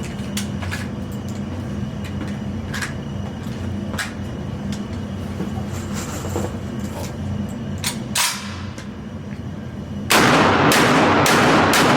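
Gunfire in an indoor shooting range: scattered fainter shots over a steady low hum of ventilation, then about ten seconds in a sudden run of about four rapid, much louder shots close by, echoing off the walls.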